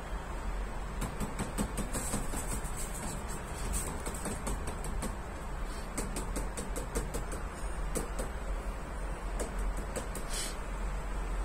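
Steady low background rumble with faint scattered ticks and taps of a cat's paws and claws on a plastic litter box lid, coming in clusters through the middle of the stretch.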